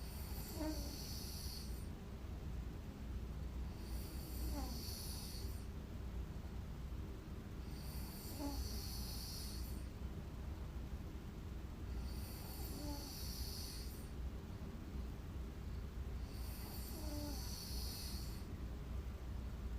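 A woman snoring in her sleep: five breathy snores about four seconds apart, each lasting under two seconds, over a steady low hum.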